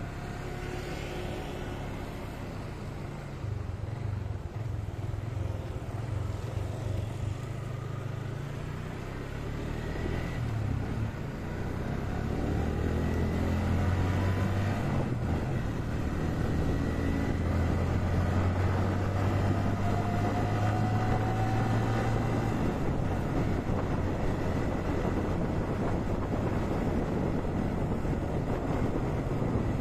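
Motorcycle engine running under way, heard from the rider's seat, with a steady rushing noise of the ride over it. The engine note rises a few times as the bike accelerates, and everything gets louder about twelve seconds in.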